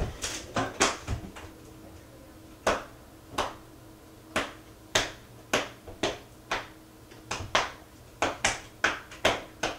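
A hand drumming on a hard surface: irregular sharp taps, about two a second, some in quick pairs.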